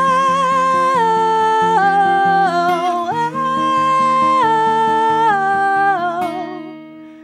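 Female voice singing long, wordless held notes with vibrato, stepping between a few pitches, over strummed acoustic guitar. The voice fades out about six seconds in.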